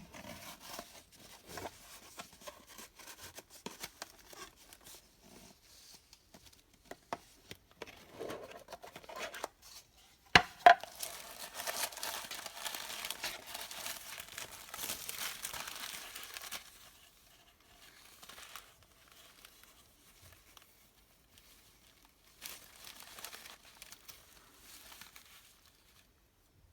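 Packaging being handled and opened: rustling and crinkling with a sharp click about ten seconds in, then several seconds of continuous crinkling, a quieter lull, and a further burst of crinkling near the end.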